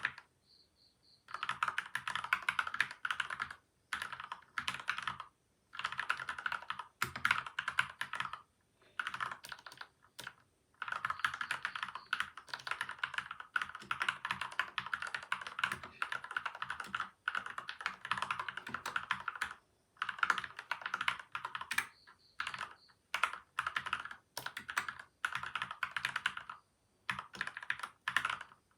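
Typing on a PCL87 mechanical keyboard with lubed switches and stabilisers, its case damped with tape and foam. It comes in runs of rapid keystrokes lasting a few seconds, broken by short pauses.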